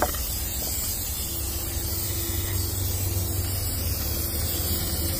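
Aerosol can of Flex Seal rubber sealant spraying in a steady, continuous hiss.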